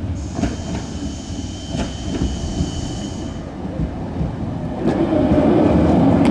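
Low-floor electric tram running toward and past on curving track: a steady high whine for the first few seconds with a few sharp clacks from the wheels over the rails, then the wheel and running-gear rumble grows louder about five seconds in as the tram comes close.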